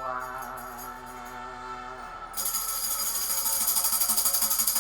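A held pitched tone for the first couple of seconds. About halfway in, loud, fast, rhythmic jingling begins, like a tambourine being shaken.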